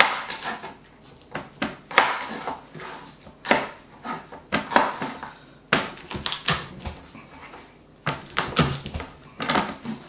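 Chef's knife knocking on a plastic chopping board while garlic cloves are cut and pulled from the bulb: irregular sharp knocks, about one a second, some in quick pairs, with the light rustle of garlic skins between.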